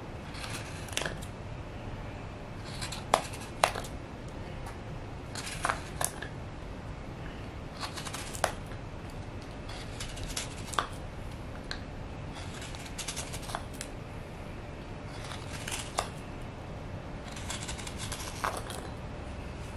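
Hook knife carving out the bowl of a birch wood cup: short, sharp scraping cuts as shavings come off the wood, one every second or two at an uneven pace, over a steady low background noise.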